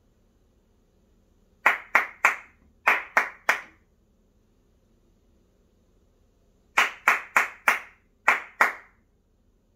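Hand clapping in short rhythm patterns for an echo exercise: six claps starting about a second and a half in, in two quick groups of three, then six more starting about seven seconds in, four evenly spaced and then two, with quiet between the patterns.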